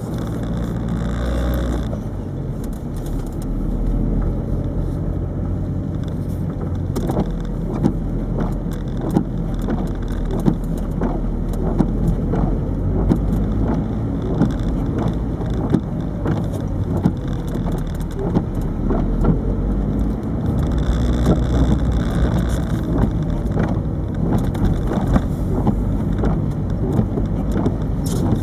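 Inside the cabin of a 1998 Peugeot 306 turbo diesel on the move: steady engine and road noise, joined from about seven seconds in by a stream of sharp, irregular ticks and rattles from the camera knocking against the dashboard.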